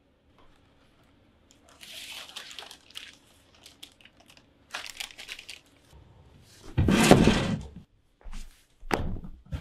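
Crunching and crinkling as hard, stale food is chewed and handled, then a loud thud about seven seconds in.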